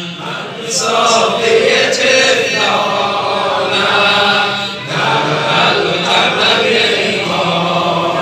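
Men chanting a mourning lament in unison, answering a lead reciter's voice on a microphone, in phrases of a second or two with short breaks, and hands striking chests in time beneath the chanting.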